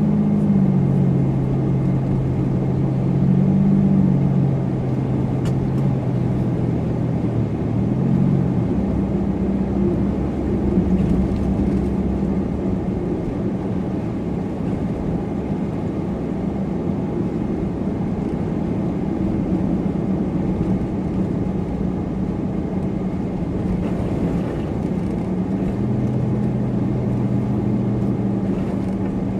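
Supercharged car driving steadily through snow: a low, constant engine hum and tyre and road rumble. The engine note shifts pitch a few times, about a second in, near the middle, and again near the end.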